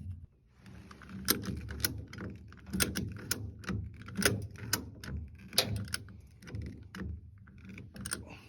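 A Rhino retractable ratchet strap is being cranked tight. The ratchet clicks sharply and irregularly, one or two clicks a second, often in pairs, as the handle is worked back and forth.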